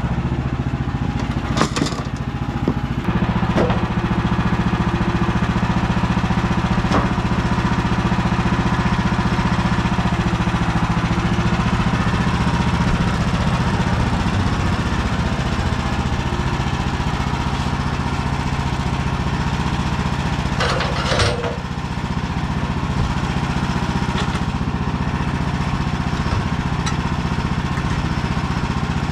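Woodland Mills HM130 Max bandsaw mill's gas engine running steadily, with two short knocks, one near the start and one about two-thirds of the way through.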